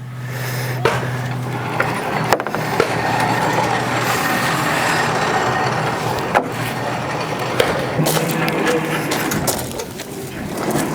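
Construction-site noise: an engine running steadily, with a few sharp knocks and clatter over a haze of noise.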